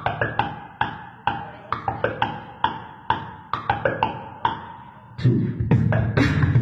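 Bato-bato clacker balls knocking together in a quick, uneven rhythm of sharp clacks, each with a short ringing tone, about two to three a second. A crowd starts cheering loudly about five seconds in.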